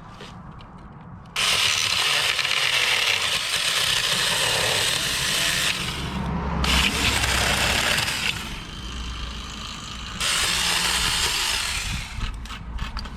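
Tomy Vic 6-inch battery-powered mini chainsaw starting up about a second in and cutting into a tree, its chain noise easing and picking back up a few times as it bites into the wood.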